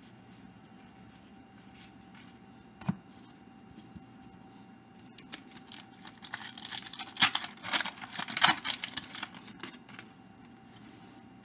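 A trading-card pack wrapper being torn open and crinkled for several seconds, after a single light tap about three seconds in.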